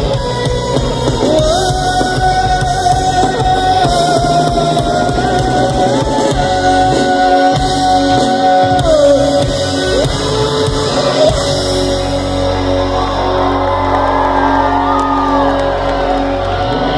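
Live rock band playing through a large outdoor PA system, with guitars, keyboard and drums, sung vocals and long held notes, heard from within the crowd.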